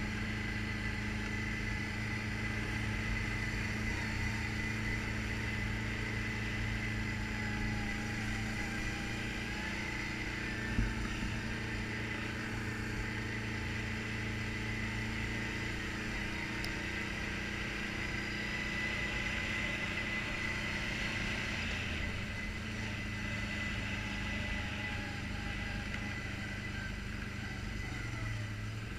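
ATV engine running steadily while the quad is ridden along a dirt trail, with one short knock about eleven seconds in.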